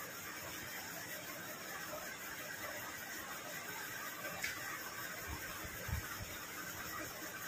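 Steady hiss of room tone with faint sounds of eating by hand: fingers mixing rice on plastic plates. A small click about four and a half seconds in and a soft thump near six seconds.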